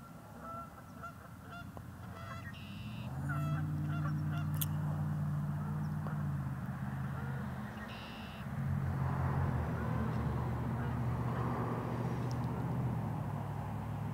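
Geese honking, short repeated calls over the first few seconds. From about three seconds in, a louder low steady engine-like hum takes over, breaks off briefly around seven to eight seconds, then resumes.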